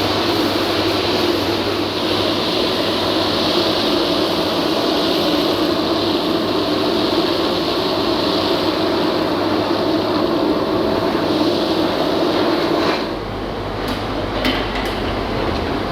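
The vacuum pump of an industrial chip-and-coolant vacuum running steadily, pressurizing the collection drum to push the coolant back out through the return hose. About 13 seconds in the sound drops abruptly to a lower hum, with a couple of clicks soon after.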